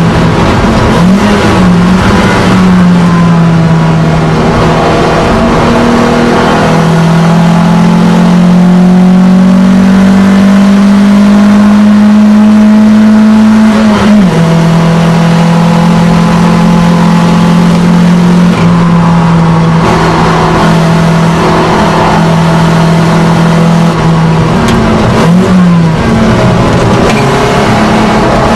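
Alfa Romeo GTV engine running under load, heard from inside the cabin. Its note climbs slowly for several seconds, then drops sharply about halfway through. The pitch briefly wavers near the start and again near the end.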